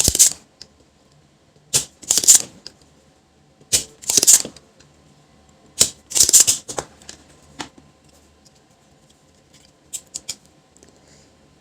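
Handling noise from work on a monitor's power-supply circuit board: four short scratchy rustles about two seconds apart, then a fainter one and a few light clicks near the end.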